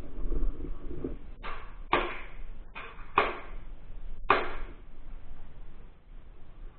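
Airsoft replica fired in single shots, about five sharp pops with short decaying tails spread over roughly three seconds.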